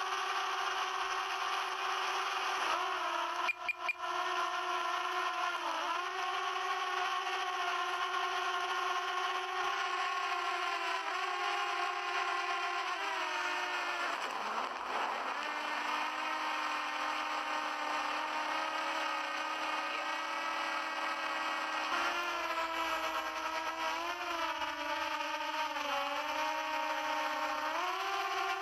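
Quadcopter drone's propellers humming, a steady multi-tone whine whose pitch drifts up and down as the motors change speed, sagging lower about halfway through and rising again near the end.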